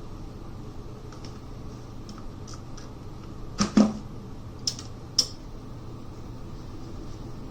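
Light clicks and knocks of small metal parts being handled, the rack-mount brackets and screws of a network switch: faint ticks, a sharp double knock about halfway through, then two more sharp clicks about a second later.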